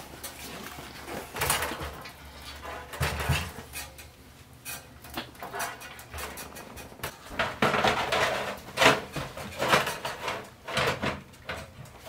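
Irregular clunks, knocks and scrapes of a Corsair RM750 power supply being handled and fitted into a metal PC tower case, with short rustles of its cables against the case.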